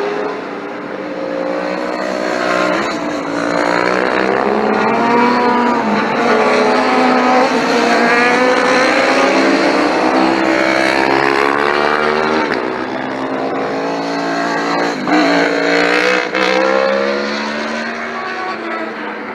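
Several racing motorbike engines at high revs, one overlapping another, pitch rising as they accelerate and dropping at gear changes as they go past.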